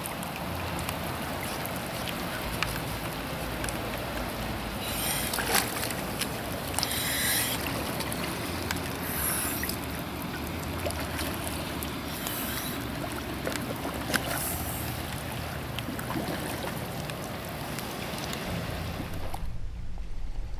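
Steady hiss of rain falling on a river and water lapping as a scuba diver wades in and floats at the surface, with a few brief splashes. Near the end the sound turns suddenly muffled as the microphone goes underwater.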